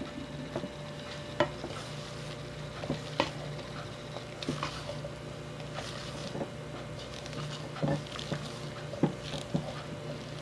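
Silicone spatula folding thick cake batter in a stainless steel bowl: irregular scrapes and soft clicks as the blade drags against the metal and through the wet mixture.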